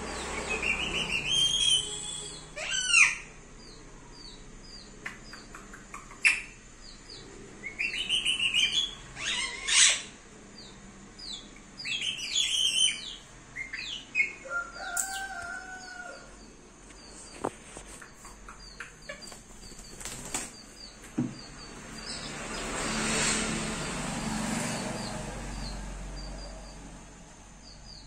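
Pet rose-ringed parakeet chattering in short squawks and calls, with a couple of held whistled notes, as it mimics sounds on its own. Faint quick chirps run under it, and a rustling stretch comes near the end.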